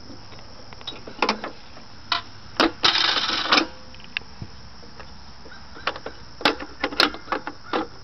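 Metal clicks and clanks from the base of a vintage penny gumball machine being opened and its parts handled, with a short dense rattle of loose coins about three seconds in and another run of clicks near the end.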